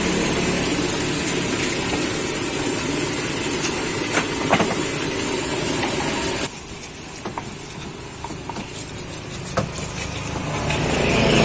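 Steady hum of a running engine over background noise. About six and a half seconds in, it cuts to a quieter stretch with scattered light clicks and taps.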